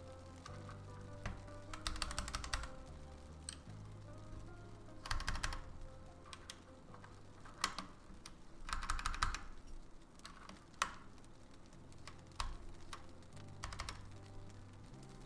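80% mechanical keyboard being typed on in short bursts of rapid keystrokes, with pauses between them, over background music.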